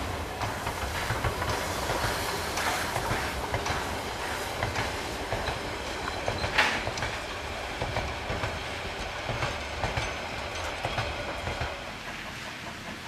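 Harz narrow-gauge steam train's carriages passing close by, wheels clicking and knocking over the rail joints over a low rumble, with a short squeal about halfway through. The sound drops quieter near the end.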